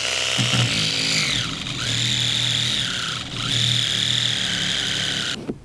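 Cordless drill running as its bit bores into the top of a pumpkin. The motor whine dips in pitch twice, then cuts off shortly before the end.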